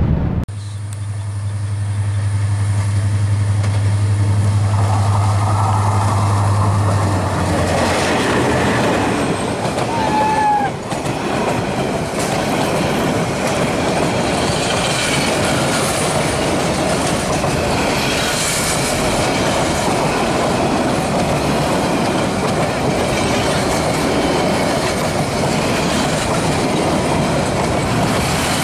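Diesel locomotive engine drone as the passenger train nears, then the coaches rush past with continuous rumble and wheel clatter on the rails. There is a brief squeal about ten seconds in.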